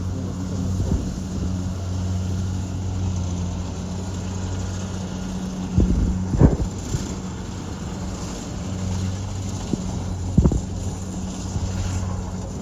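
Vehicle engine running with a steady hum while driving, with a few sharp knocks about six seconds in and again about ten seconds in.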